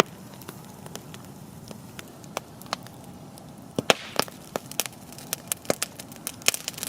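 Wood campfire crackling: irregular sharp pops from the burning firewood over a low steady rush of flame, the pops coming thicker and louder from about four seconds in as the fire flares up.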